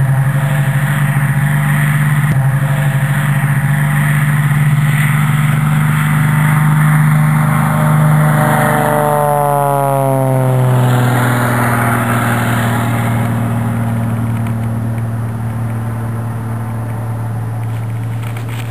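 Extra 330SC aerobatic plane's six-cylinder Lycoming engine and propeller at full take-off power. It passes close about halfway, its pitch dropping as it goes by, then fades steadily as the plane climbs away.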